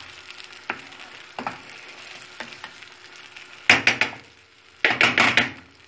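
Wooden spatula stirring and scraping eggs scrambled with tomato and cheese in a nonstick frying pan, over a low sizzle. A few light taps in the first half, then two longer, louder scraping strokes near the end.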